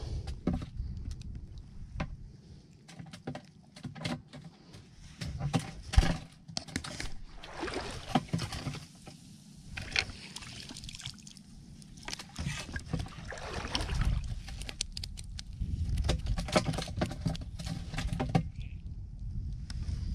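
Wading through shallow water over stones and sweeping scoop nets through it: irregular splashing and sloshing, with scattered clicks and knocks, a sharp one about six seconds in.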